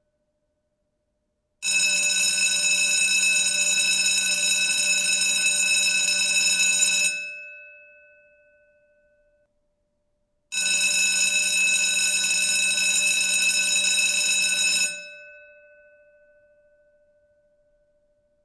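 School bell ringing in two long rings of about five seconds each. After each ring stops, the bell's tone lingers and fades.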